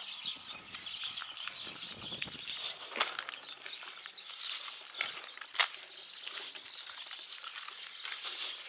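Rustling and light crackling from someone walking among spruce trees and brushing through their branches, with a few sharper clicks standing out, and a faint low hum underneath from about three seconds in.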